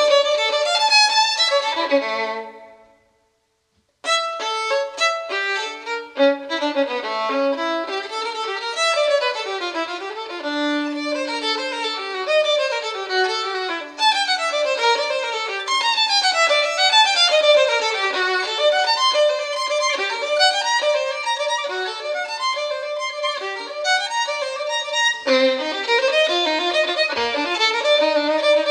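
Instrumental background music led by a violin playing quick runs of notes. It fades out about two seconds in, stops for about a second, then starts again.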